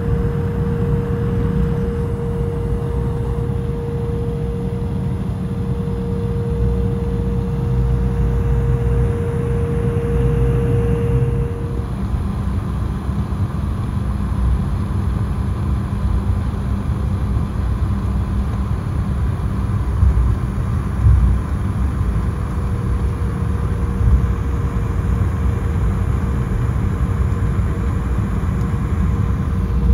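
Steady low cabin rumble of an Embraer E175 regional jet on the ground after landing, its engines or auxiliary power and air conditioning running. A thin steady hum over the rumble cuts out about twelve seconds in, as the sound shifts slightly, and comes back near the end, with a few soft knocks about two-thirds of the way through.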